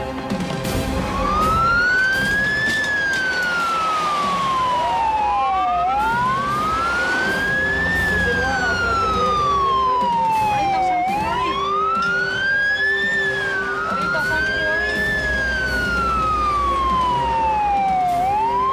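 Ambulance siren wailing: a quick rise in pitch, then a slower fall, repeating about every five seconds, with a second wail overlapping at times.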